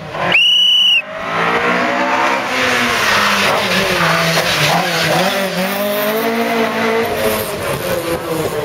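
A loud, steady high beep lasting under a second. Then a Mk2 Ford Escort rally car's engine revs up and down as it drives through a bend.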